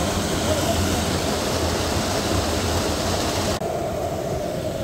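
A small waterfall in a rocky wadi stream, water rushing steadily over the rocks into a pool. The high hiss drops away sharply about three and a half seconds in.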